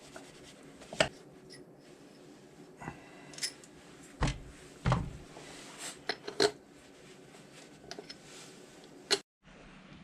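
Tyre being worked onto a small scooter wheel rim by hand: scattered metal clinks and knocks with rubbing of rubber against the rim in between.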